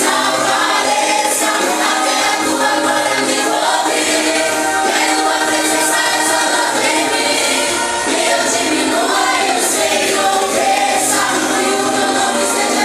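A group of voices singing a Christian worship song in Portuguese with musical accompaniment.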